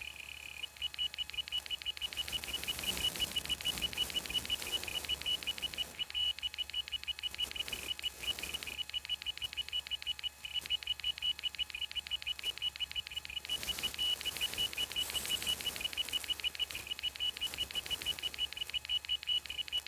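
iPod hard drive making a fast, even train of high-pitched chirping ticks, several a second, with two short breaks: the noise of the drive hitting bad sectors.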